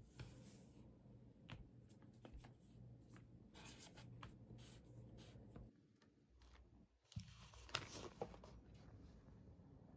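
Faint pen writing on paper, soft scratching with small taps and paper rustles. The sound drops out for about a second near the middle, then picks up again a little louder.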